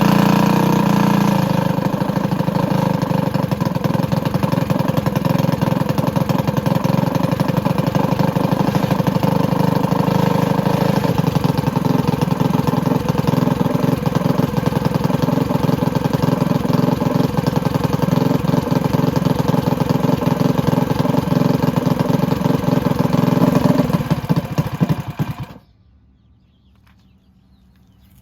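Predator 212 single-cylinder four-stroke engine with a 26 mm PWK carburetor running on E85, a little louder for the first couple of seconds, then running steadily before cutting out suddenly near the end. It is dying at idle, which the builder tries to cure with a larger pilot jet.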